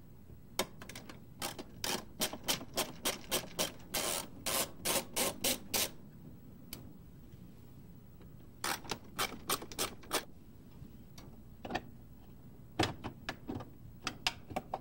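Screwdriver working screws out of a Mercedes E-Class (W210) plastic centre console: rows of sharp clicks, about three or four a second. The clicks come in three runs, the first and longest lasting about five seconds.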